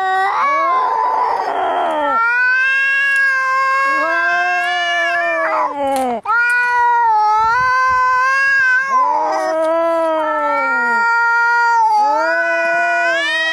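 Angry cats caterwauling in a fight: long, wavering yowls that rise and fall in pitch, one after another, with a hiss about a second in and another harsh burst near the middle.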